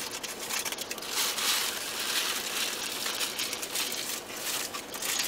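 Paper food wrapping crinkling and rustling as it is handled and opened, with many small crackles, heaviest from about a second in to past the middle.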